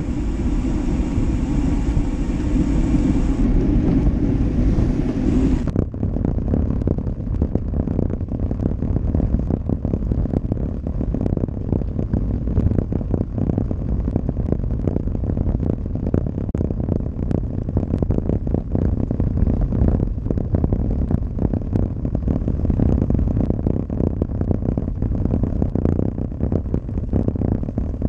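Wind rushing over the microphone of a road bike's handlebar-mounted action camera, then from about six seconds in a dense, rapid clatter and rumble as the bike rolls over a paving-stone road and shakes the camera.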